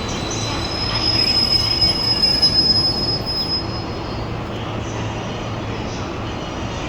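Freight wagons squealing as they roll slowly during shunting and coupling: a high steady squeal swells about a second in and fades out by about three and a half seconds in. Under it runs a steady low drone from the shunting diesel locomotive's engine.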